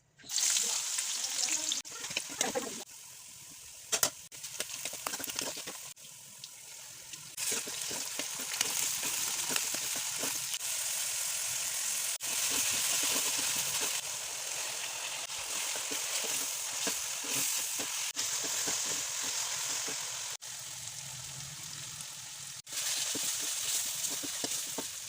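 Food sizzling as it fries in hot oil in a pan, heard in several short clips that cut in and out, with a sharp knock about four seconds in.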